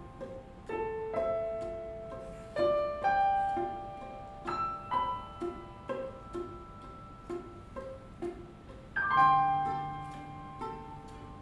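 String quartet and piano playing live: piano notes and chords ring and die away over short pizzicato string notes plucked in a steady pulse, and a low held note comes in about nine seconds in.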